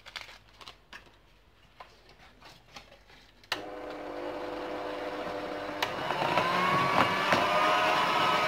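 Electric hand mixer switched on about three and a half seconds in, its beaters running steadily through génoise batter of eggs, flour and cocoa; the motor gets louder about six seconds in. Before it starts, a few light clicks of handling.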